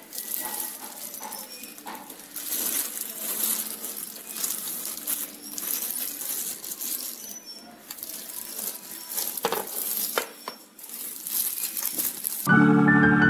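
Clear plastic packaging crinkling and rustling in uneven bursts as it is handled and pulled off a glass bathroom scale. Organ-like music starts abruptly near the end.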